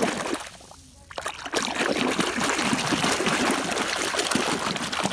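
Water splashing and trickling as a muddy toy container truck is washed by hand in pond water, with a brief lull about a second in.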